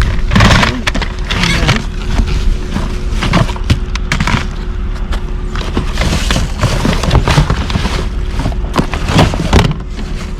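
Rummaging through a pile of discarded household items: repeated knocks, thuds and rustling as things are moved and handled.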